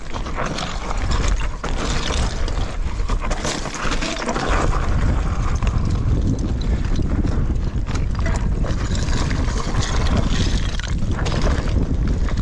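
Mountain bike tyres crunching and clattering down loose slate scree, with many small knocks and rattles from the stones and the bike, under wind rumbling on the microphone.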